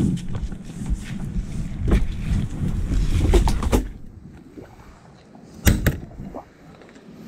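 Handling noise of a jostled action camera: a low rumble with scattered knocks and clicks for about four seconds, then quieter, with one sharp knock near six seconds.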